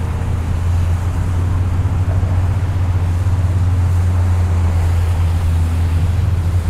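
Jet skis running along the channel: a steady low engine drone with fainter engine tones above it, starting and stopping abruptly.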